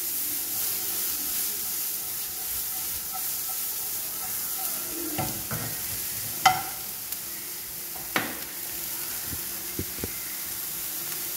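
Chopped onion, green chilli, tomato and capsicum sizzling in butter in a nonstick frying pan as they are stirred with a spatula: a steady frying hiss. A couple of sharp knocks on the pan come about six and a half and eight seconds in.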